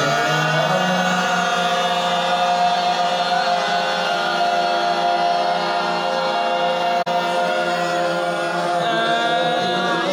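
Voices chanting together in unison on one long held note, devotional chanting, with a very brief drop-out about seven seconds in and a change of pitch near the end.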